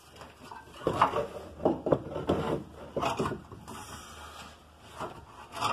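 Irregular knocks, clunks and scraping of hand work on a car's front subframe, with a few sharp knocks about a second apart and a quieter stretch in the middle.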